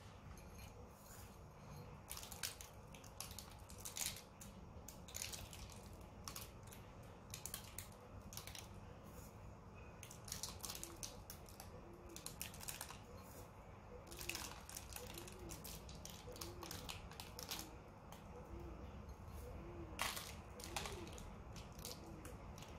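Paper cake cases crinkling and rustling with scattered soft clicks as sticky, honey-soaked griwech pastries are handled and rearranged in a glass bowl.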